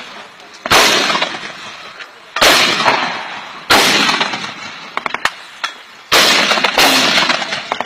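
Gunfire from a tripod-mounted machine gun: four loud reports about 1.3 to 2.4 seconds apart, each with a long echoing tail, and a few light clicks just after the middle.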